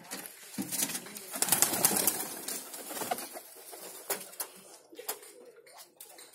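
Domestic pigeons cooing, with a loud burst of rustling noise early in the stretch, about a second and a half in.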